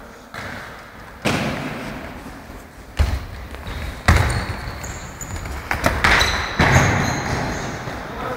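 A football being kicked and struck against a hard gym floor: about half a dozen sharp thumps that echo around the sports hall, with players' footsteps and short high squeaks of shoes on the floor in the second half.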